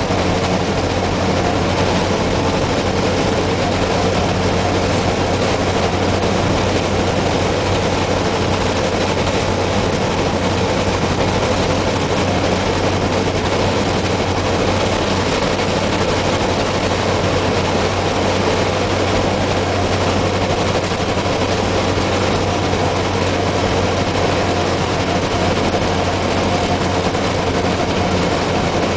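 Peterbilt semi truck's diesel engine droning steadily at highway speed, mixed with road and wind noise, heard from inside the cab.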